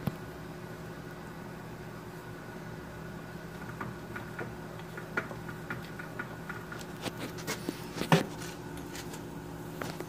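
A milling machine's spindle runs with a steady hum while a drill bit cuts holes in a metal heater-element flange. From about three and a half seconds in there are scattered clicks and ticks of metal, with one sharp clack about eight seconds in.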